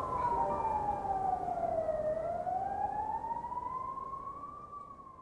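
Siren wailing slowly, its pitch sliding down for about two seconds and then climbing back up, over a low rumble, fading away near the end.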